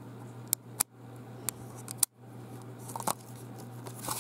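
Close handling noise: a handful of small, sharp clicks and light rustles, scattered irregularly over a steady low hum. The sound cuts out completely for a moment about two seconds in.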